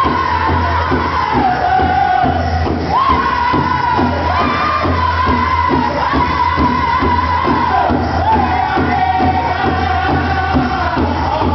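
Powwow drum group singing a men's grass dance song: several high-pitched voices singing together in unison over a steady, even beat on a shared drum.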